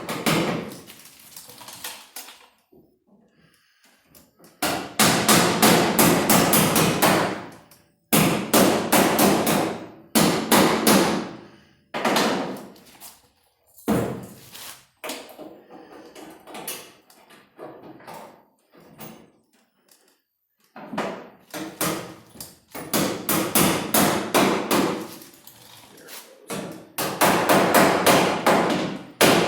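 A hammer striking the sheet-steel quarter panel in quick runs of sharp, ringing blows, several a second, with pauses between runs. It is tapping the panel into place to tuck its bottom lip up under the inner support beam.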